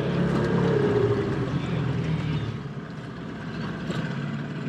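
Small outboard motor, its idle just retuned, running at low speed in gear and pushing a small dinghy. Its low steady note falls away and quietens about two and a half seconds in, under wind and water noise.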